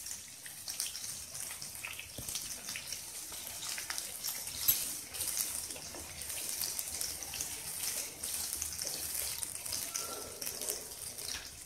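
Sliced onions sizzling in hot oil in a kadai: a steady hiss with many small crackles.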